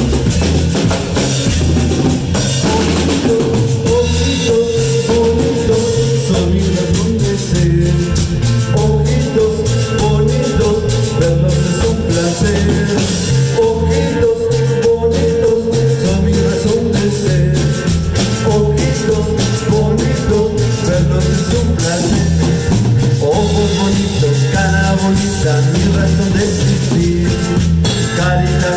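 Cumbia band music: a steady repeating bass line and drum beat under a melody line.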